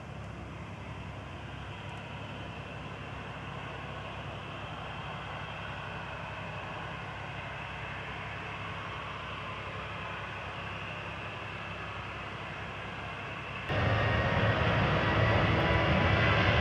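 Boeing 737-800's CFM56 turbofan engines heard from across the airfield at low thrust, a steady jet noise as the airliner turns and lines up on the runway. Near the end the sound jumps suddenly much louder as the takeoff run begins.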